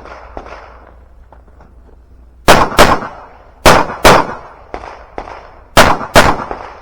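Sig Sauer P365 pistol fired six times as three quick pairs, each pair of shots about a third of a second apart, with a second or more between pairs: double-taps on targets in an IDPA stage.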